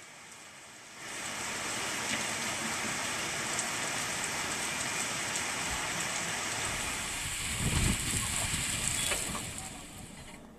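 Heavy rain pouring onto a street, a steady hiss that comes in about a second in and fades out near the end. A deeper low rumble swells briefly in the later part.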